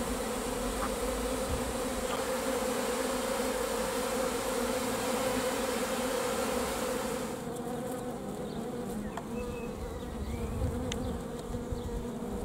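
A swarm of honey bees buzzing, a steady hum with a higher overtone. About seven seconds in the buzzing becomes quieter and thinner.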